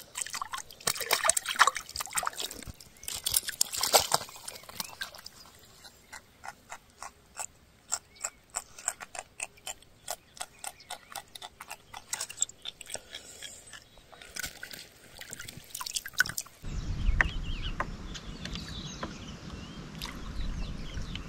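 Water splashing in loud bursts as a small fish is swung out on the line and thrashes at the surface, followed by a run of small sharp clicks, about two a second, as the line and hook are handled. Near the end the sound changes abruptly to a steady low rumble.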